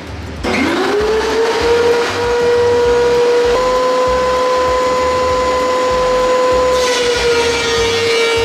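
DeWalt DW735 thickness planer switched on: its motor and cutterhead spin up with a rising whine and settle into a steady high running tone. Near the end the sound turns louder and rougher and the pitch sags slightly as it comes under load, as when a board starts feeding through and being cut.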